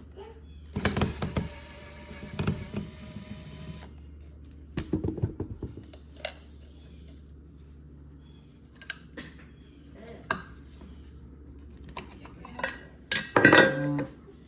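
Small metal parts and tools clinking and clattering as a pool pump motor is taken apart. Early on, a struck metal piece rings for about three seconds. Scattered knocks follow, then a short burst of clatter near the end.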